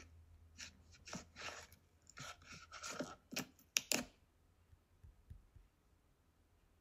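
A run of light, irregular clicks and taps, like hands working at something on a table, for about four seconds, then only a faint low hum.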